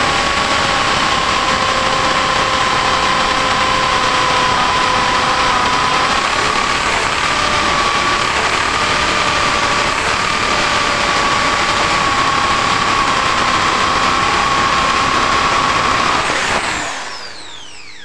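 AEG SB 500 RE corded impact drill boring a 20 mm hole in a wooden board with a spade bit. The motor runs steadily under load with a high whine and does not bog down. Near the end the trigger is released and the motor winds down with falling pitch.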